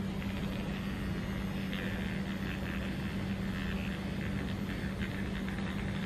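Small motor of an Avon battery-powered nail-shaping machine running with a steady hum as its spinning tip is moved over the eyebrow.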